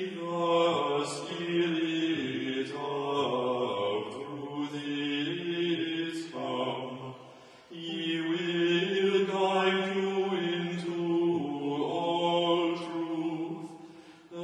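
Two men's voices chanting together, holding each note and moving step by step, phrase by phrase with short breaks for breath between phrases.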